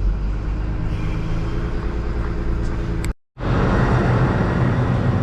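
A motor vehicle's engine running steadily with a low hum. A little past three seconds in the sound cuts out completely for a moment, then comes back louder and noisier.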